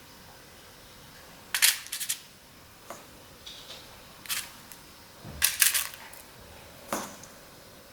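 Kitchen handling sounds: short, sharp clicks and clinks of utensils or containers being set down and moved, coming in small irregular clusters, the busiest about five and a half seconds in.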